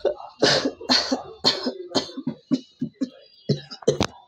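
A person coughing repeatedly in a quick series of short coughs, roughly two a second, with two sharp coughs near the end.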